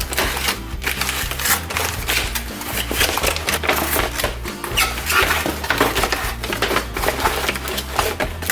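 Small plastic toy kitchen pieces and packaging being handled and unpacked: a rapid, irregular run of light clicks and rattles, over background music.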